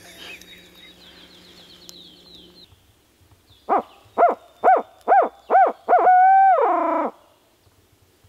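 Owl locator call blown by a turkey hunter in the barred owl cadence: a quick run of short rising-and-falling hoots, then one long drawn-out hoot that drops away at the end. It is hooted to make gobblers answer.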